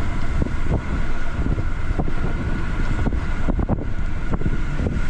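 Pickup truck driving slowly across wheat stubble: steady rumbling tyre and engine noise with occasional knocks from the rough ground, and wind buffeting the microphone.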